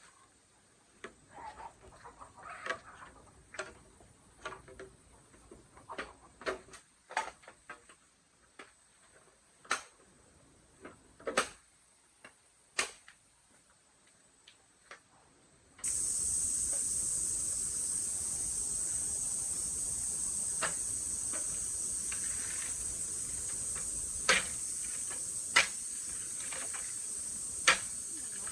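Scattered sharp clicks and taps, irregular and unhurried. About halfway through, a steady high insect drone cuts in suddenly, with a few more sharp clicks over it.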